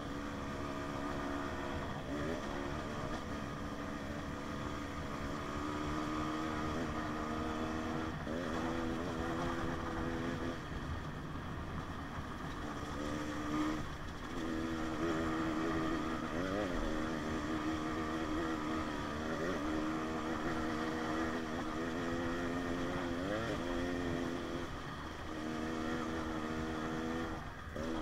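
2019 KTM 150 XC-W two-stroke dirt bike engine running along a trail, its pitch rising and falling with the throttle several times and easing off briefly about halfway through. Wind rumbles on the microphone.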